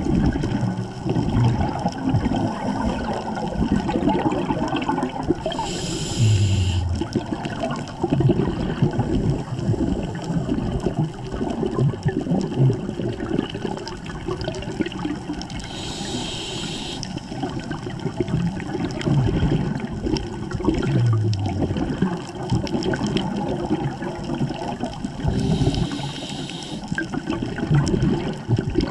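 Scuba diver breathing underwater through a regulator: a short hiss of inhalation three times, about ten seconds apart, with continuous bubbling and gurgling of exhaled air in between.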